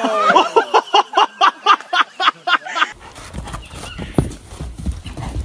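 A person laughing hard in quick regular bursts, about four a second, for about three seconds. The sound then changes abruptly to a low rumble with a few dull thuds from a horse bucking on sand.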